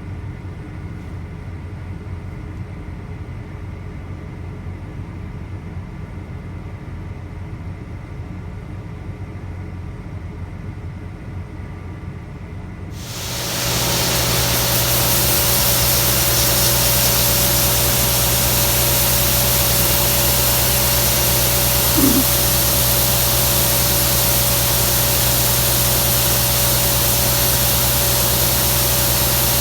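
Combine harvester running: a low, steady engine drone, then about thirteen seconds in the sound jumps to a loud, even hiss over a steady machine hum.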